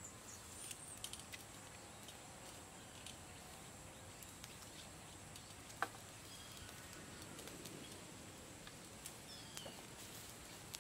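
Faint forest ambience: a steady high insect drone, scattered light clicks with one sharp click about six seconds in, and a couple of short falling bird chirps near the end.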